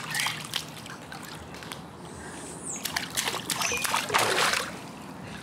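Swimming-pool water splashing and sloshing in short bursts, loudest from about three to four and a half seconds in.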